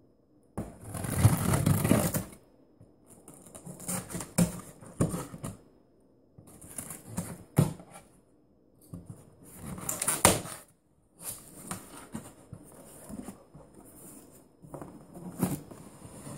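A cardboard shipping box being opened by hand: a blade slicing through packing tape, and the cardboard flaps rustling, scraping and knocking as they are pulled apart, in irregular bursts with sharp clicks. The loudest burst comes about half a second in and lasts nearly two seconds.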